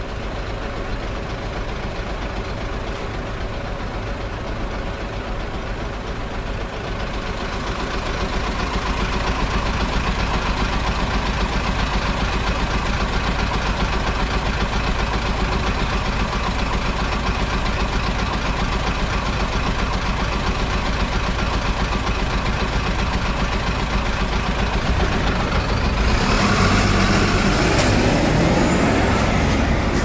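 City bus engine running at a stop, a steady low hum that grows louder about eight seconds in. Near the end a broad hiss with a few clicks comes in over it.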